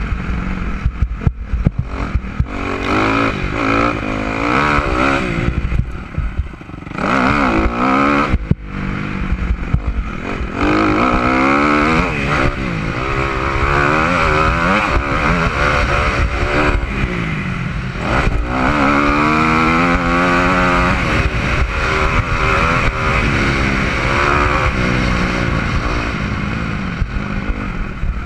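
Motocross dirt bike engine, heard from the rider's helmet, revving hard and falling back over and over as the rider works the throttle and gears around the track. The engine note dips briefly about six seconds in, and sharp knocks and clatter from the bike over rough ground come through.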